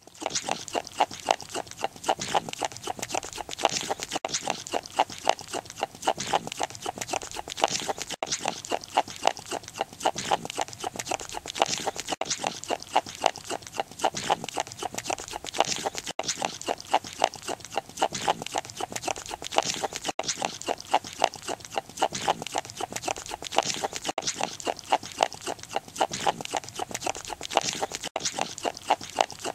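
A hyrax chewing close up: a fast, even run of wet smacking and crunching strokes, several a second. The pattern repeats about every four seconds, with a short break each time.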